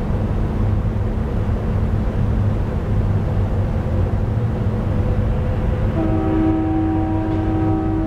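Synthesized recreation of a distant Nathan P2 two-chime locomotive horn over a steady low rumble of background noise. The horn is silent at first, then one long held blast starts about six seconds in.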